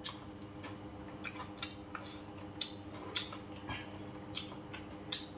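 Chopsticks and a spoon clicking lightly against ceramic bowls and plates while food is picked up: about a dozen short, sharp clicks at irregular intervals over a faint steady room hum.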